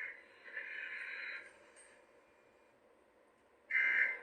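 Emergency Alert System SAME digital data bursts, each a harsh electronic screech. One runs about half a second in for roughly a second, and a shorter, louder one comes near the end.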